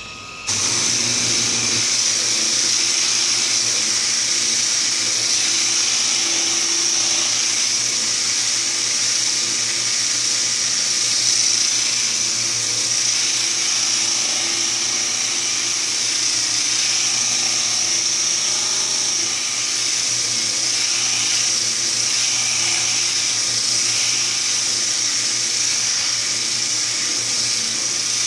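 Homemade sander built from a quarter-horsepower washing machine motor turning a rubber-backed sanding disc. It switches on about half a second in and runs steadily at speed, with sandpaper grinding on a block of wood.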